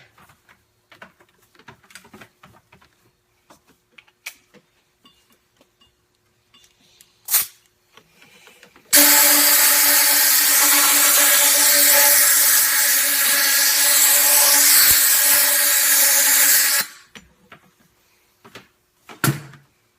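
Compressed-air blowgun blowing into a KYB outer fork tube to dry it after cleaning. A short blast comes a little after seven seconds in, then a loud steady hiss carrying a steady tone for about eight seconds from about nine seconds in, then another short blast near the end.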